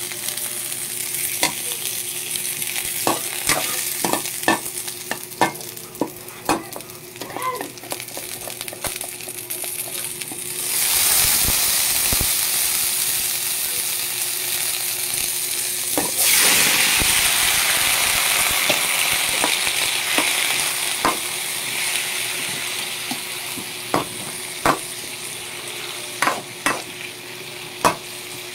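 Green chilies and aromatics, then chicken pieces, sizzling in hot oil in a metal wok, with a metal ladle scraping and clicking against the pan. The sizzle turns much louder about eleven seconds in and again around sixteen seconds.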